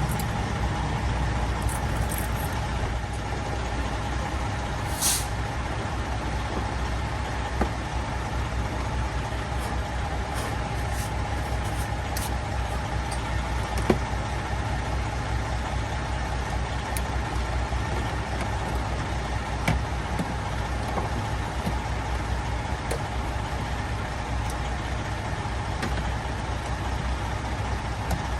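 Steady hum of an idling truck engine, with a few light clicks and taps as parts are handled.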